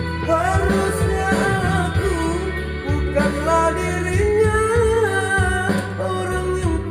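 A solo voice singing a melody over a backing track with bass and guitar-like accompaniment. The uploader says the voice is not at its best because of a cough.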